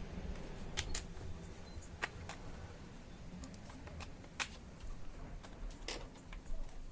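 Sharp plastic clicks and snaps, about six of them at irregular intervals, as a spudger pries the Dell Vostro 14 5459 laptop's plastic back cover and its locking clips release.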